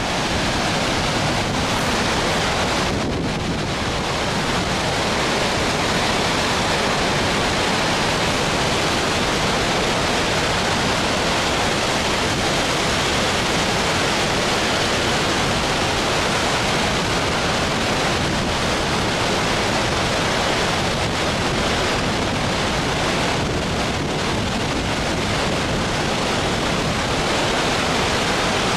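Muddy floodwater pouring over a low weir and churning in the white water below, making a steady, even rush of water.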